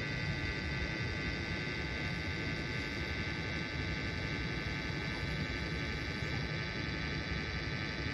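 Steady background hum and hiss of a room, unchanging throughout, with no speech.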